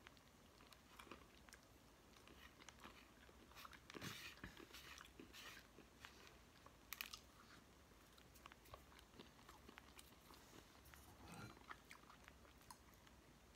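Faint chewing and crunching as a person eats, with a few louder crunches about four seconds in and again near seven seconds.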